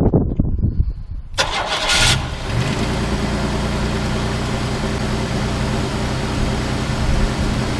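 Car engine cranked by a freshly reinstalled starter motor, catching at once with a sharp flare about a second and a half in, then settling into a steady idle. It starts right away with no hesitation, showing the starter works properly.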